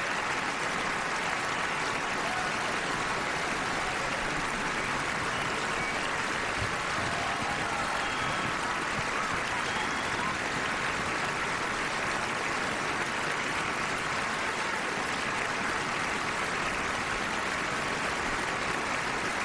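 Large theatre audience applauding and cheering steadily, with a few whistles.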